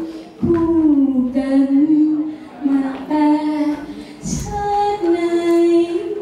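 A woman singing long held notes, with short breaks between phrases.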